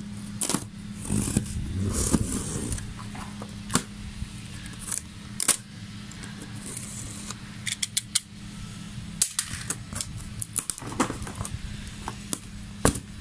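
Cardboard shipping box being opened by hand: a string of irregular scrapes, taps and clicks as the tape and flaps are worked, over a steady low hum.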